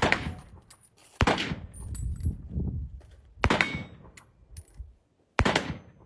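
Four single gunshots, unevenly spaced one to two seconds apart, each followed by a long fading echo.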